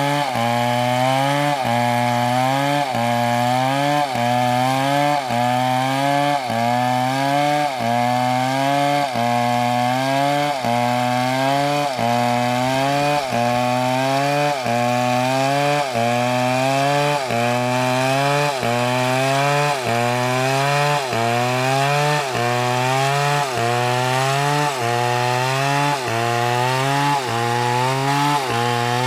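Large chainsaw, an MS720, cutting into a big tree trunk under load. The engine note climbs and then drops back sharply in a steady cycle of a little under once a second.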